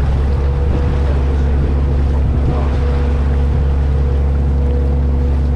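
Water taxi under way: its engine runs with a steady, unchanging low drone, mixed with the rushing hiss of the wake churning along the hull.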